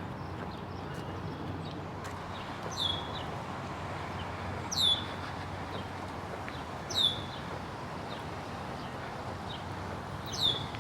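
A bird repeats a short, high call that slides down in pitch, four times about two seconds apart, over steady background noise.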